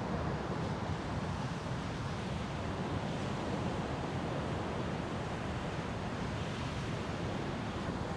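Steady wash of ocean surf mixed with wind buffeting the microphone, with no distinct events.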